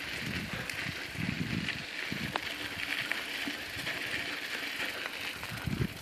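Bicycles rolling along a dirt trail: tyres on dirt and pine needles, a steady hiss with irregular low bumps and a few light clicks.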